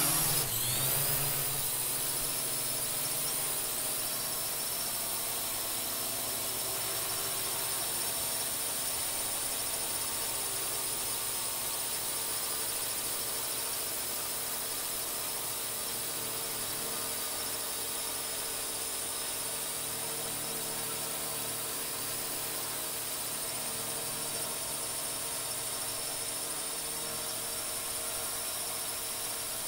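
Multirotor drone's electric motors and propellers running at a steady hover speed: a high, even whine of several held tones over a hiss, a little louder in the first second as its pitch settles after spooling up.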